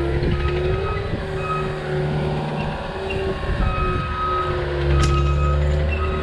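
Heavy earthmoving machine's engine running under load as it works the dirt slope, steady with small shifts in pitch, and a short sharp click about five seconds in.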